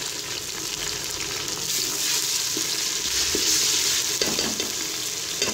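Sliced onions and freshly added ginger-garlic paste sizzling steadily in hot oil in a pressure cooker, with a few light scrapes and knocks of a wooden spatula stirring them.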